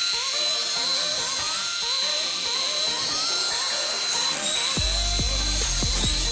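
Small electric motor and rotor of a toy helicopter running, a steady high-pitched whine, with a looping tune of short rising notes alongside. From about five seconds in, a low rumble and a few knocks join it.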